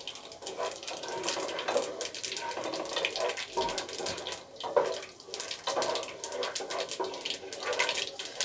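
Panch phoron seeds, peanuts and dried red chillies sizzling and crackling in hot oil in a nonstick pot, stirred with a wooden spatula.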